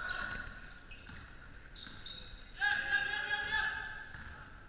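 Basketball game on a hardwood sports-hall court: ball and player sounds echoing in the hall, with a high squeal about a second long just past halfway.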